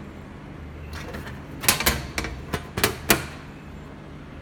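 Top cover panel of an HDMI matrix switcher being fitted back onto the chassis: a quick run of about six sharp clicks and clunks, about one and a half to three seconds in, over a steady low hum.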